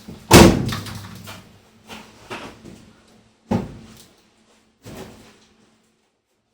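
A series of clunks and bangs of things being handled and set down: one loud bang about a third of a second in that rings away, a few lighter knocks, then two more sharp clunks in the second half.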